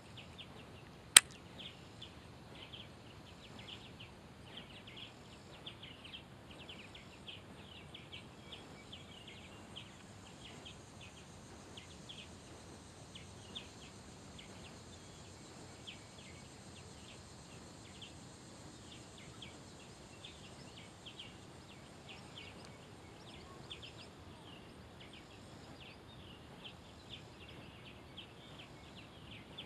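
Quiet outdoor wildlife chorus: many short, high chirps scattered throughout over a faint, steady high drone. One sharp click about a second in is the loudest sound.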